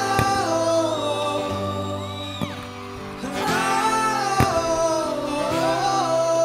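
A song with a singer over held instrumental chords, with a few sharp hits.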